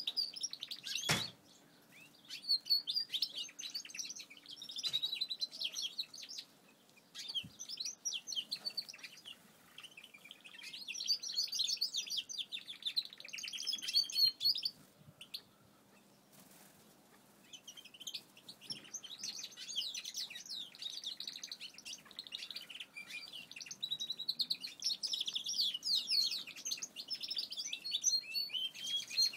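Aviary finches chirping and twittering in busy spells, with a lull of a few seconds about halfway through. A single sharp click sounds about a second in.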